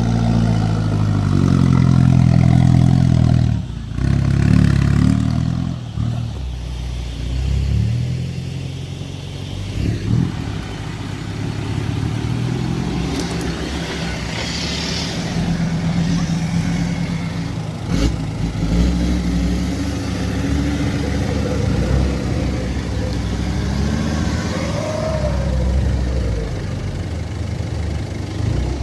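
An off-road 4x4's diesel engine revving hard under load in the first few seconds, then running steadier and somewhat quieter.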